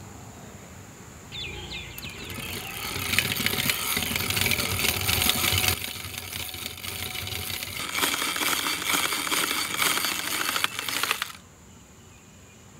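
Wire beaters whipping cream in a ceramic bowl, a dense fast metallic rattling in two spells of about three and a half seconds each, with a short pause between. The cream is being beaten to stiff peaks.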